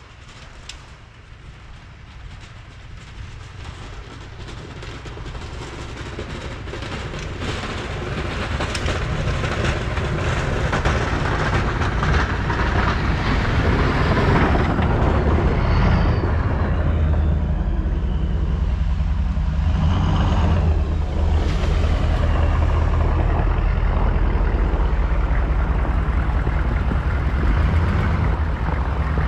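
1999 GMC K3500 pickup truck's engine running while pushing snow with a Fisher plow. It grows steadily louder over the first ten seconds or so, then holds steady, with a noisy rushing stretch through the middle.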